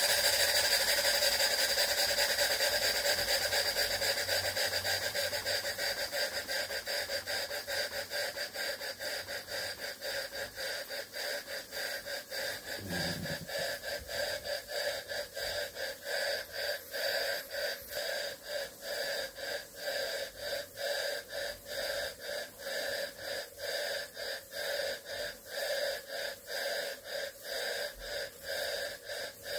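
Modified Jensen 20G model steam engine running on steam from a 4-inch MSM copper boiler. A loud steam hiss fades over the first several seconds and gives way to a steady, rhythmic exhaust chuff at about two beats a second.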